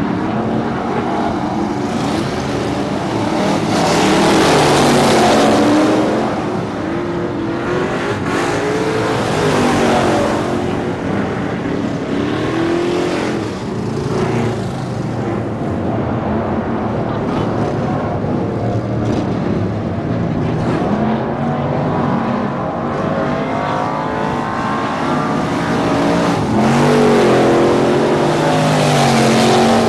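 Several dirt-track race cars running practice laps, their engines overlapping and rising and falling in pitch as they circle and pass. The loudest passes come about four to six seconds in and again near the end.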